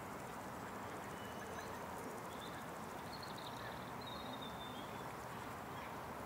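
Steady outdoor ambient noise with a few faint, high bird chirps about one to four seconds in.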